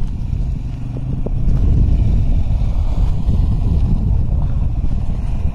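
Quad bike (ATV) engine running as the bike rides up and pulls in close: a low, uneven rumble that grows louder about a second and a half in.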